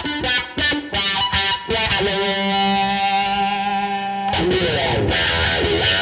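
Electric guitar on the bridge pickup, overdriven by an English Muff'n tube overdrive, played through an Electro-Harmonix Crying Tone wah pedal with Cathedral reverb. A few short, choppy notes lead into a held note. About four seconds in, the wah starts sweeping the tone up and down.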